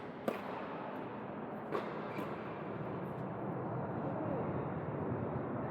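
Tennis ball struck twice by rackets, about a second and a half apart, over the steady background din of an indoor tennis hall.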